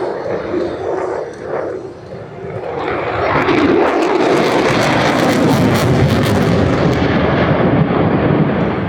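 Jet aircraft passing, its engine noise swelling from about three seconds in to a loud, crackling peak, then easing near the end.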